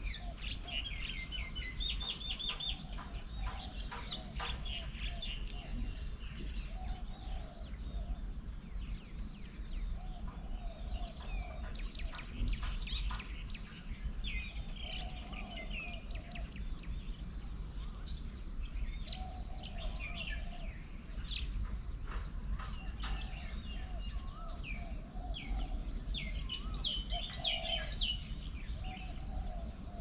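Garden birds calling: many short chirps and trills from several birds, with a lower call repeated every second or two. Under them run a steady high whine and a low background rumble.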